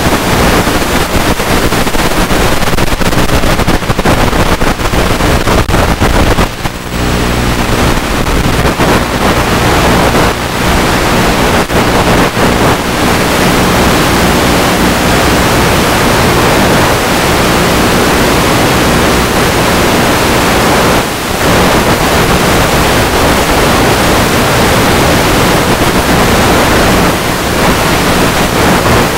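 Loud wind rush on the onboard microphone of a Multiplex EasyStar 2 RC plane in flight, over the steady hum of its electric pusher motor and propeller. The noise drops briefly twice.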